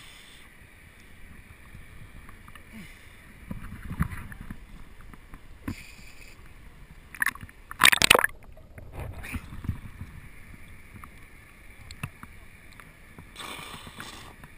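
Water lapping and sloshing around an action camera held at the river surface. About eight seconds in there is a loud splash as the camera is plunged under, and the sound turns dull and muffled with gurgling while it is underwater.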